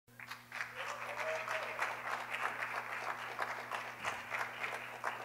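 Audience applauding, a dense run of handclaps, with a low steady hum underneath.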